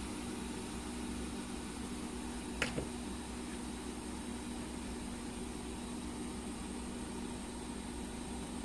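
Hot air rework station blowing steadily, a fan-driven hiss over a low steady hum, heating the solder of a phone's charging port to desolder it. Two quick clicks about two and a half seconds in.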